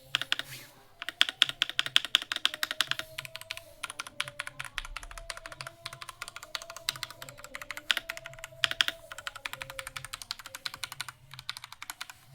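Rapid typing on the EvoFox Ronin TKL mechanical keyboard with red switches, dense runs of keystroke clacks with a few short pauses.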